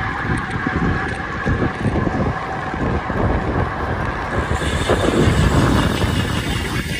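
Wind buffeting the microphone of a camera moving at riding speed: a loud, gusty rushing that rises and falls unevenly.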